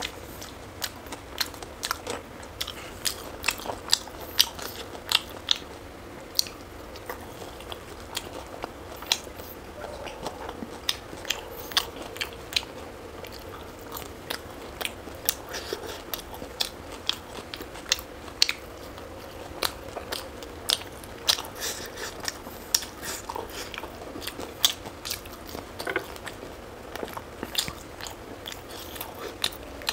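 Close-miked eating: a person biting and chewing food, with many sharp, irregular crunches and mouth clicks, often several a second.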